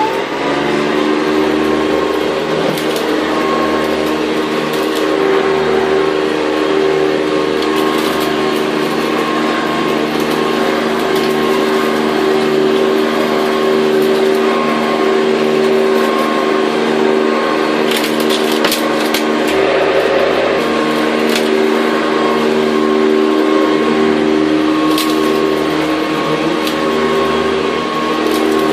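Hoover upright vacuum cleaner running steadily after spinning up at the start, its motor hum held at one pitch under a hiss of air. About eighteen seconds in, a cluster of ticks and rattles as loose bits of debris are sucked up.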